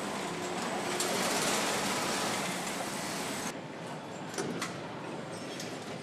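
Assembly-hall ambience in a tractor factory: a steady wash of machinery noise that cuts off abruptly about three and a half seconds in, giving way to a quieter hum with scattered sharp clicks and knocks.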